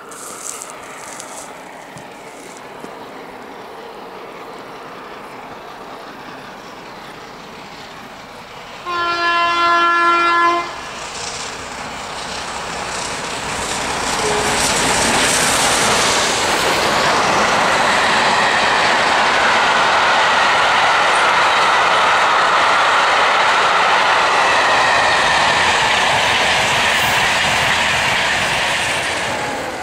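Peppercorn A1 Pacific steam locomotive 60163 Tornado approaching at speed: a faint, slowly growing approach, one whistle blast of about a second and a half on a single note, then the loud, steady noise of the engine and its coaches passing close by for the rest of the time.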